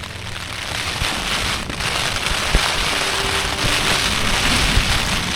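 Heavy rain pattering on a tent's flysheet, with wind gusting against the tent.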